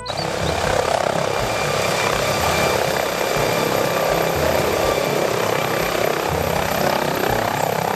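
Helicopter hovering: a steady rush of rotor and engine noise with a low, uneven beat from the rotor and a faint high whine.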